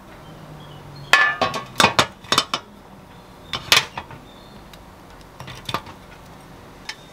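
Dishes being set down on a tray, clinking and knocking: a quick run of strikes about a second in, a couple more near four seconds, and a few lighter ones later.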